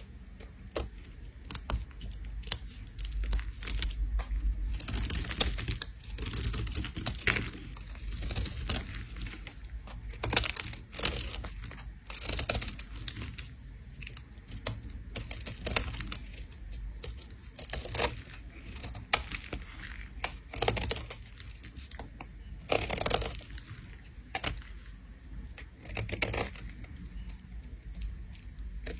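A blade scraping a bar of soap, in a quick run of short, crisp, scratchy strokes with a few longer drawn-out scrapes among them.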